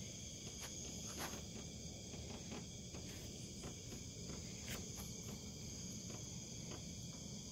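Crickets chirping in a steady night chorus, a constant high trill over a low background rumble, with a few faint clicks.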